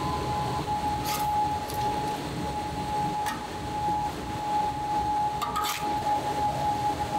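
Kitchen machinery giving a steady high whine over a low rumble, with a few short clatters and clinks, one of them about three seconds in as boiled pork bones are tipped into a bin bag.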